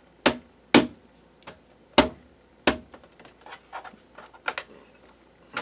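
Sharp plastic clicks and snaps of a laptop's bottom cover being pressed back into place: four loud snaps in the first three seconds, then a run of lighter clicks.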